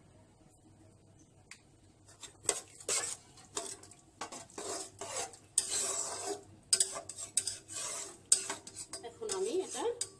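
A spatula stirring chana dal in a nonstick pot, in a run of quick, uneven scraping strokes that start about two seconds in.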